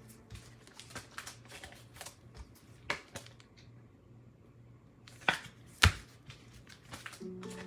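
Trading cards being handled and sorted, with a few sharp clicks and soft slides of card stock scattered through, over a faint steady low hum. Background music comes in near the end.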